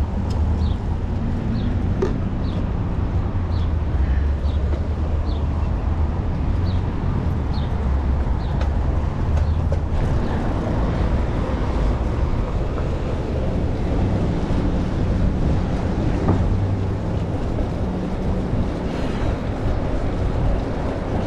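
Wind buffeting the microphone with the rolling noise of a bicycle riding along. For the first several seconds a short high chirp repeats about every two-thirds of a second.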